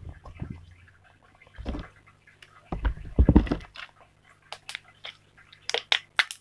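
Slime being squeezed and stretched by hand, squelching with a few dull thumps around the middle and a run of sharp clicking pops that grows thicker near the end. The slime is slightly overactivated.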